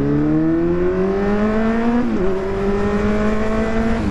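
Kawasaki Z900's inline-four engine pulling hard under acceleration from the rider's seat. The pitch rises steadily, drops sharply at an upshift about halfway through, then climbs again to a second upshift at the very end.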